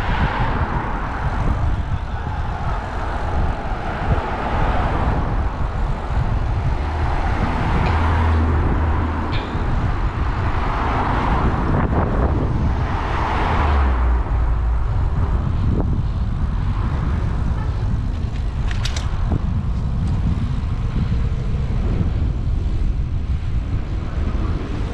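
Road traffic noise with a steady low rumble and wind on the microphone while riding. Vehicles swell past a few times, most strongly about 8, 11 and 13 seconds in.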